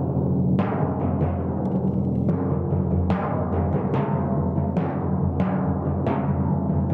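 Timpani played with felt-headed mallets: an irregular run of strokes, some in quick succession, with low pitched notes that ring on and overlap between strokes.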